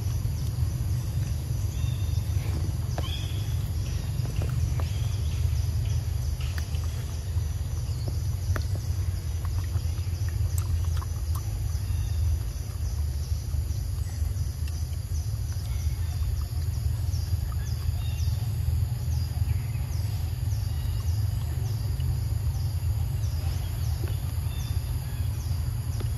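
Steady low rumble with a pig-tailed macaque chewing mango close by: a few short clicks and smacks in the first half. Birds chirp repeatedly, short high notes about once a second in the second half.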